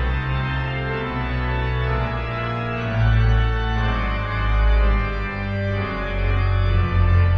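Aeolian-Skinner pipe organ playing sustained chords over deep held pedal notes, swelling louder about three seconds in and again near the end.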